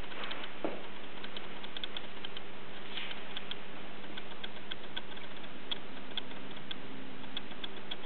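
Light, irregular clicks and ticks from a wine-bottle sampler being handled and its knob turned, with a soft knock about half a second in, over a steady low hum and hiss.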